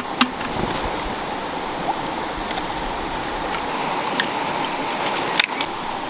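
A few sharp clicks of a chicken egg being tapped against the rim of a clay pot, the loudest just after the start, over a steady rushing background noise.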